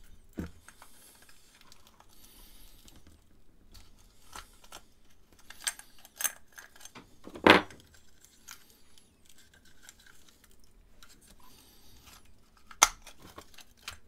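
Steel round-body lever padlock handled and worked at with its back removed: scattered small metallic clicks and rattles, with a sharper click about halfway through and another near the end.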